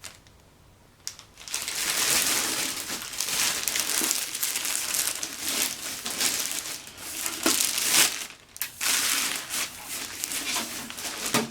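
Packaging crinkling and rustling as it is handled and pulled open, starting about a second and a half in and running on with scattered sharp crackles.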